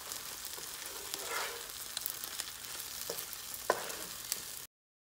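Slotted wooden spatula stirring sago pearls in a nonstick frying pan over the heat, with a soft frying sizzle and scraping. A couple of sharp knocks of the spatula on the pan come past the three-second mark, and the sound stops abruptly near the end.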